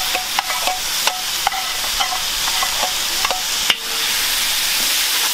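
Beef pieces sizzling in hot oil and green seasoning in a large metal karahi, with a metal spoon scraping and clinking against the pot as they are stirred. The clinks stop after a last sharper knock about four seconds in, leaving steady sizzling.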